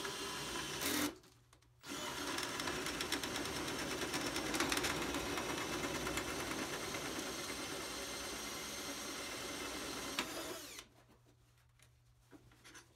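Cordless drill spinning a hole saw in a tubing notcher, cutting a notch into a metal pipe. It runs for about a second, pauses briefly, then runs steadily for about nine seconds and stops near the end.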